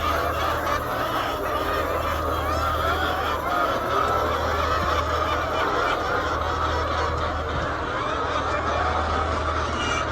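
A large flock of laying hens calling all at once, a continuous dense chorus of overlapping clucks and squawks, over a steady low hum.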